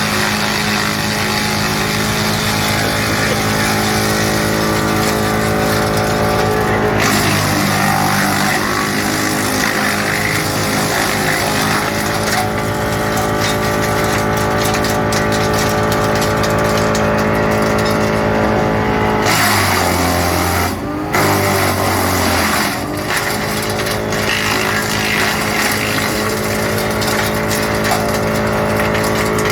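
GL&D M175DS tractor-mounted woodchipper, driven by the tractor, running loud and steady while chipping wood. Its pitch sinks briefly about a quarter of the way in and again for a few seconds past the middle.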